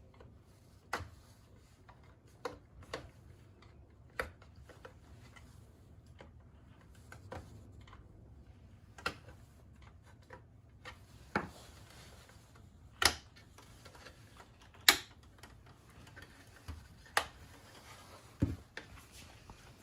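Plastic clamshell housing of a rear-seat entertainment screen being pried apart along its seams: about a dozen sharp clicks and snaps at irregular intervals, the loudest about three quarters of the way through.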